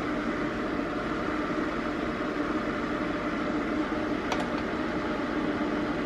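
Kloudi ceramic PTC space heater's fan blowing steadily with a low hum, and a faint click about four seconds in.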